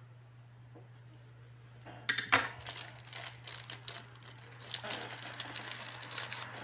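Clear plastic bag holding a USB cable crinkling as it is handled, starting about two seconds in with a few sharp crackles, then a steady run of rustling.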